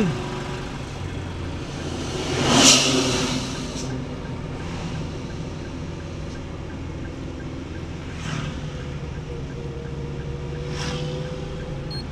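Road noise inside a moving car at about 30 km/h: a steady engine and tyre drone, with the loud whoosh of an oncoming vehicle passing about two and a half seconds in, and a couple of shorter swishes later.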